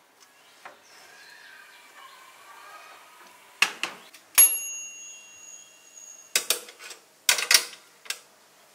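A metal tray clatters into a small countertop toaster oven. The oven door then shuts with a metallic clank that rings for a couple of seconds, and a few more sharp metal clacks follow near the end as the door and rack are handled again.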